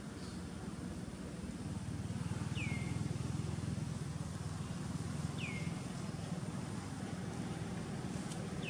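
Outdoor ambience: a steady low rumble, with a bird's short high call that falls in pitch and then levels off, repeated three times about three seconds apart.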